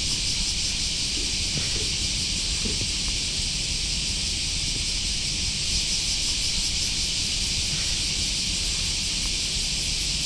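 A steady, high-pitched chorus of cicadas droning, with a few faint small knocks.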